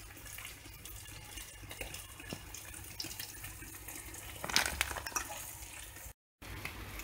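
Saucepan of salted water at the boil bubbling as polenta is poured in and stirred. There is a short cluster of clicks and knocks about four and a half seconds in.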